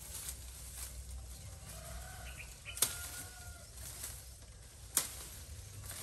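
Bamboo leaves and stems rustling as they are pulled and handled, with two sharp snaps, one about three seconds in and one near five seconds. A faint drawn-out tone sounds briefly in the middle.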